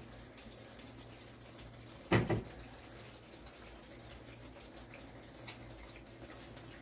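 Sauce simmering in a non-stick wok as a spatula stirs it, a steady hiss with a low hum underneath, and one louder knock of the spatula against the pan about two seconds in.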